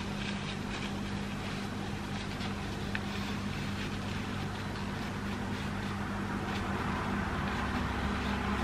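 A steady low hum with an even hiss over it, with no clear event standing out.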